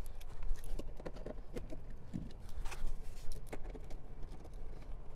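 Irregular small clicks and taps of a screwdriver and hand working T20 Torx screws out of the underside of a VW GTI's plastic door trim panel.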